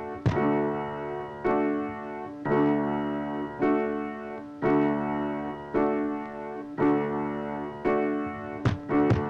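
Piano music: the same chord struck about once a second, each ringing out and fading before the next, with two quicker strikes near the end.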